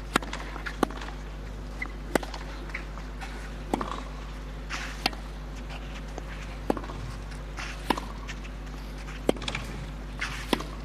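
Tennis rally on a clay court: sharp pops of the ball coming off the racket strings, about one every second and a half, with fainter ticks of the ball bouncing between them. A steady low hum runs underneath.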